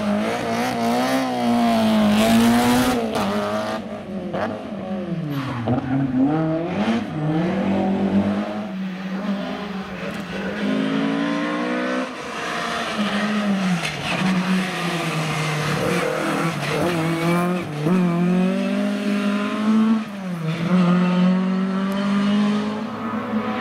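Historic rally car engines revving hard through a stage, the pitch climbing and dropping again and again as the drivers lift off, brake and change gear for the corners.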